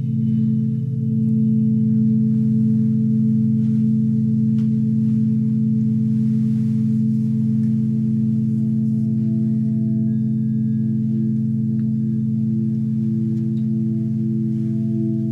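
Meditation music: a sustained drone of several steady low tones, with a slow pulsing beat in one of them that grows louder in the second half.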